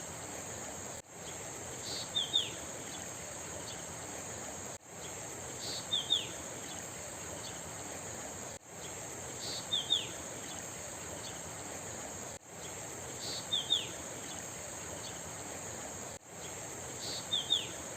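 A steady high-pitched insect trill over an even rushing haze of running water, with a short bird call of two or three quick falling notes that comes back about every four seconds. It is a looped recording: the whole sound drops out for an instant and restarts at the same interval.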